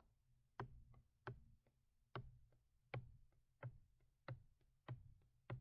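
Faint, irregular taps, about two a second: a stylus tapping and stroking on a drawing tablet.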